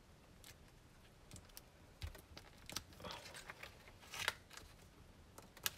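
Black cardstock and a clear plastic sheet being handled and folded by hand: light rustling with scattered taps and clicks, the sharpest about four seconds in and again just before the end.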